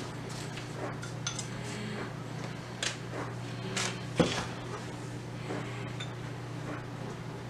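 A small bowl, a jar and utensils clinking and knocking on a glass cooktop as curing salt is measured out. The sharpest knock comes about four seconds in, over a steady low hum.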